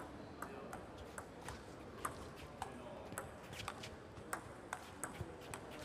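Table tennis rally: the celluloid-type ball clicking off the players' rubber-faced bats and bouncing on the table, an uneven run of sharp ticks about two to four a second over a low hall murmur.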